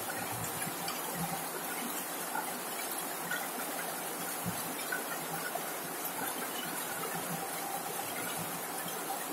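Heavy rain falling steadily on a corrugated zinc roof, with scattered single drops hitting sharper now and then.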